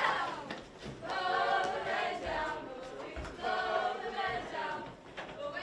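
A group of young voices singing together as a chorus, in phrases of held notes with short breaks between them.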